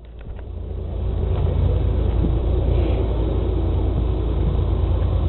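CSX freight train's diesel locomotives approaching on the track: a low rumble that swells over the first second, then holds steady.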